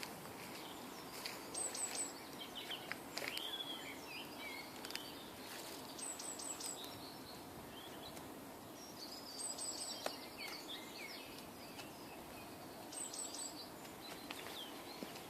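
Wild songbirds singing over quiet outdoor ambience. A high, quick phrase of three or four notes repeats about every three to four seconds, with other warbling birdsong between.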